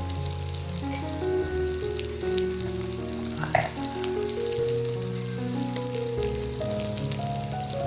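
Duck and kimchi sizzling on a cast iron grill plate, a fine steady crackle, under background music of slow held notes. There is a short clink about halfway through.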